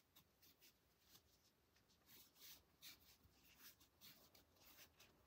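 Very faint, short irregular brushing and scratching of a crochet hook drawing cotton yarn through stitches, barely above room tone.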